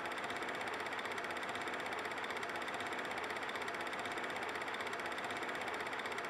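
Simulated 8mm film projector sound: a steady, fast mechanical whirring clatter.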